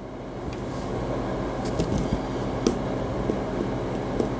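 A steady rumbling noise that builds over the first second, with light irregular clicks or taps from about one and a half seconds in.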